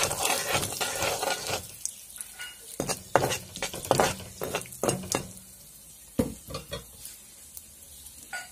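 Whole cumin and cardamom sizzling in hot oil while a slotted spatula stirs them and scrapes against the pan: tempering the spices. The sizzle is densest for the first couple of seconds, then gives way to separate scrapes and taps that thin out near the end.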